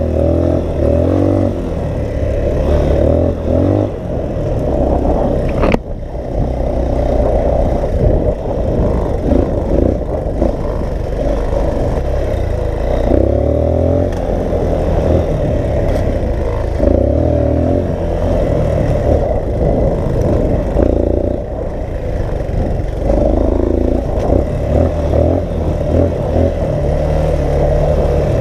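Dirt bike engine running under load on a trail ride, its revs rising and falling as the throttle opens and closes, with wind buffeting the microphone. One sharp click or knock about six seconds in.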